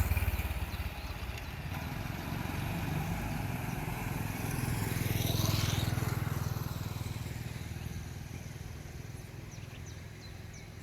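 Motor vehicles driving past: one is going by at the start, and a second swells up and passes about five seconds in. Their engine hum then fades away.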